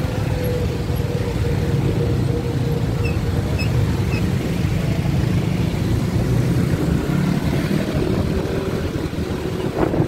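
Yamaha motor scooter's engine running with road noise while riding in traffic: a steady low hum throughout.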